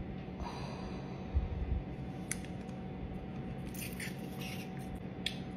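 Chopsticks clicking and tapping in a plastic takeout container while a sauce-covered fried soup dumpling is picked up and bitten. There are a couple of low knocks about a second and a half in and a few sharp clicks later, over a faint steady hum.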